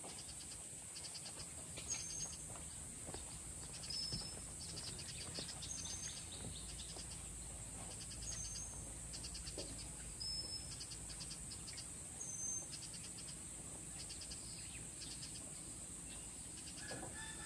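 Morning birdsong and insects: a bird repeats a short, high whistled note about every two seconds, alternating between two pitches, amid rapid chirping, over a steady high insect drone.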